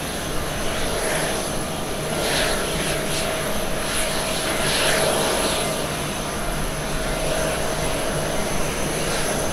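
Boeing 787-9 airliner's twin turbofan engines at takeoff power during the takeoff roll: steady jet noise with a held whining tone.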